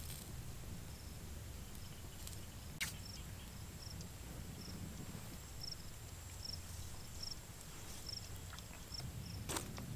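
Outdoor field ambience: a steady low wind rumble with a faint high chirp, typical of an insect, repeating about twice a second. A sharp click sounds about three seconds in and again near the end.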